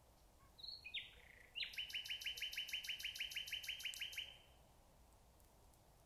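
Common nightingale singing one phrase: two short whistled notes, then a fast run of about twenty repeated, rattling notes, roughly seven a second, which stops a little after four seconds in.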